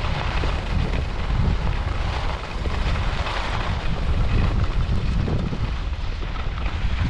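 Wind buffeting the microphone during a downhill ski run, a steady low rush, with the hiss of skis sliding over snow.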